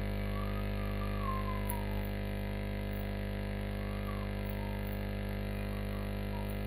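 Steady electrical hum with many overtones, with faint wavering tones drifting in twice.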